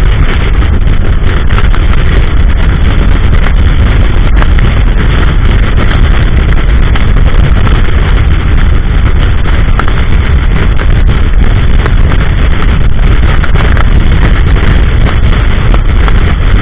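Strong blizzard wind buffeting the microphone in a loud, steady rumbling roar that never lets up.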